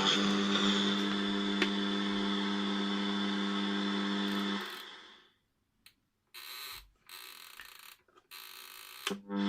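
Electric buzzer of a SONY flip-clock alarm radio sounding a steady buzz, which stops about halfway through. After a few short bursts of hiss it starts buzzing again near the end.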